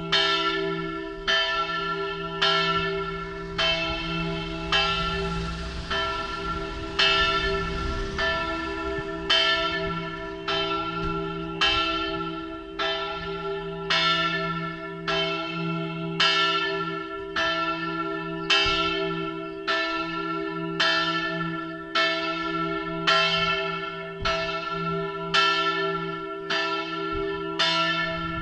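Large church bell, tuned to a slightly sharp E3 and cast by Giovanni Battista De Poli in 1921, swinging in the Friulian style. The clapper strikes about once a second, alternately louder and softer, and the bell's hum rings on between strokes. It is the last call to a funeral service.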